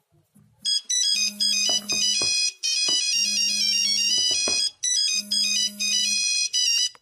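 Mobile phone ringtone playing a fast melody of high electronic notes in three phrases, cutting off suddenly at the end.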